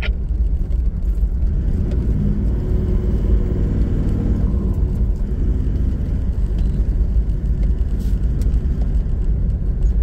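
Steady engine drone and tyre rumble of a 4WD cruising at highway speed on a sealed road, heard from inside the cabin; the engine note shifts a little a few seconds in.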